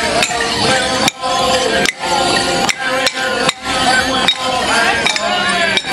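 Morris dancers' wooden sticks clashing together in a steady beat, a sharp clack roughly every 0.8 seconds, over a folk dance tune played on instruments.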